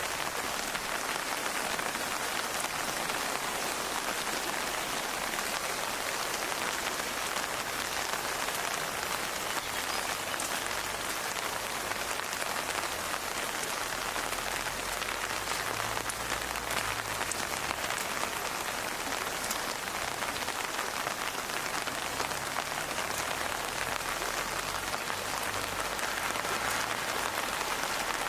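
Steady rain falling: an even, dense patter with individual drops ticking through it. A faint low rumble comes and goes twice, about halfway through and again near the end.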